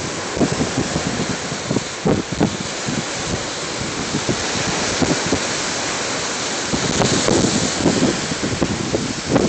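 Steady wash of small waves breaking on a sandy beach, mixed with wind buffeting the microphone in irregular low rumbling gusts that come thickest near the end.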